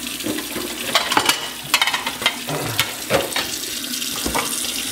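Kitchen tap running into a sink while plates are washed by hand, with repeated clinks and knocks of dishes against the sink and each other.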